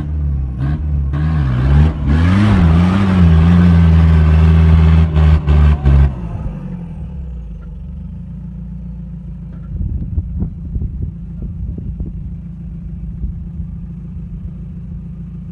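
Toyota LJ70 Land Cruiser's four-cylinder diesel engine revving hard under load as it crawls through a deep rut, its pitch wavering. After about six seconds it drops to a steadier, quieter running, with a few short knocks near the middle.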